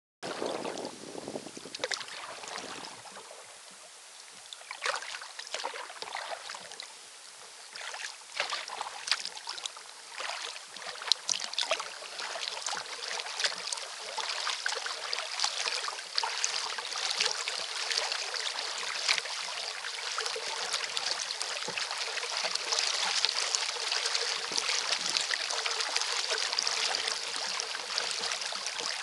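Choppy water lapping and splashing against the hull of a moving Elie Sound 100 recreational kayak, with many small sharp splashes and drips from paddle strokes. The water sound becomes steadier and louder from about twelve seconds in.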